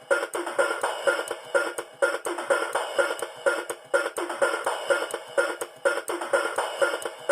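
Electronic tune with a wood-block and drum beat played by a Rhythm 'Notteru Kong' alarm clock through its small speaker, thin with almost no bass. A short phrase repeats about every two seconds.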